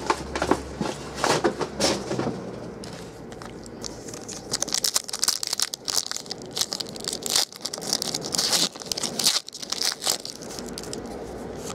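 Foil wrapper of a basketball trading-card pack crinkling and tearing as it is handled and ripped open, in irregular bursts of crackle that are busiest in the middle stretch.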